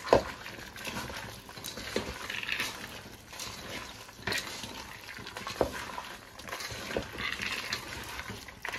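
A hand mixing raw mutton pieces with soaked chana dal, onion and spices in a metal pressure cooker pot: wet squelching and rustling, with irregular knocks against the pot wall every second or two.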